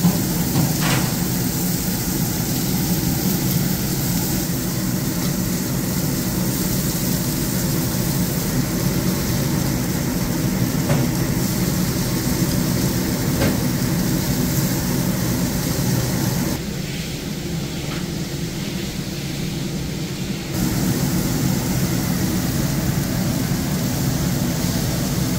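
Chicken breasts sizzling on a commercial gas char-grill over a steady low mechanical hum of kitchen equipment, with a few faint clicks of metal tongs on the grill. For a few seconds past the middle the sound drops a little and the hiss thins.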